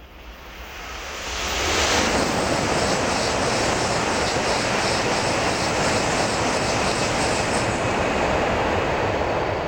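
N700-series Shinkansen bullet train passing at high speed. The rushing noise builds over the first two seconds, holds steady and loud, and begins to fade near the end.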